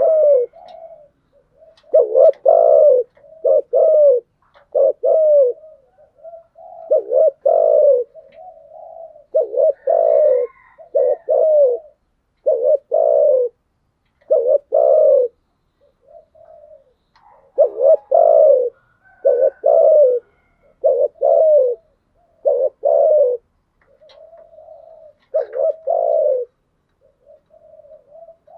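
Spotted dove cooing over and over: deep coos in groups of two or three with short pauses, and softer notes between the groups.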